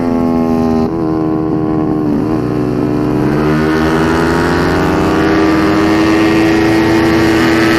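Yamaha Mio scooter's bored-out 230cc four-valve single-cylinder engine at full race effort on track. The note holds steady, dips briefly about a second in, and falls as the scooter slows for a corner. From about three seconds in it climbs steadily as the scooter accelerates out.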